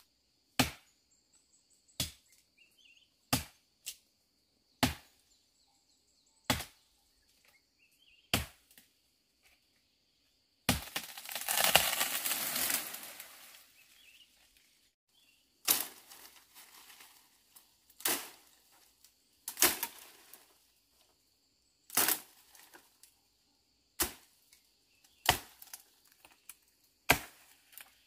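Machete chopping into a small tree trunk, one sharp strike about every second and a half. About eleven seconds in the tree gives way and falls, crashing through the brush for two or three seconds; then the chopping goes on into the cut branches, at a less even beat.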